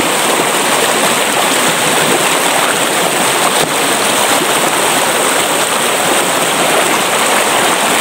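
Fast, shallow stream rushing over rocks: a loud, steady rush of water.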